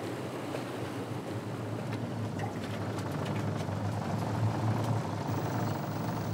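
A boat's engine running steadily, a low drone under an even hiss.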